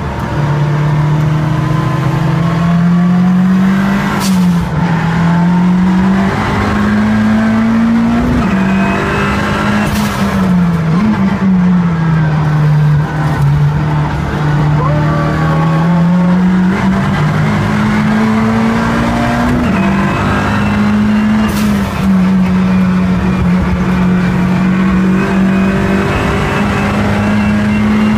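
Race-prepared MINI's engine under hard acceleration, heard from inside the cabin: the revs climb steadily and drop sharply at each gear change, several times over, with tyre and wind noise beneath and a few brief sharp knocks.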